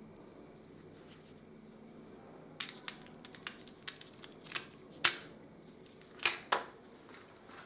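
Hard small objects being handled: scattered light clicks and knocks, starting about two and a half seconds in, with a few sharper knocks in the second half.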